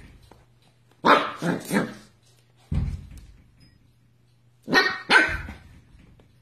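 Corgi puppy barking in play at a tennis ball: three quick barks about a second in, a short low thump, then two more barks near the five-second mark.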